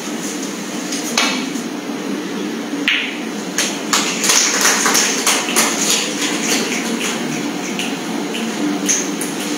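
Snooker shot: the cue tip knocks the cue ball about a second in, and the cue ball clacks into an object ball nearly two seconds later. A few seconds of rapid, sharp clicks follow, the loudest part. A steady low hum runs underneath.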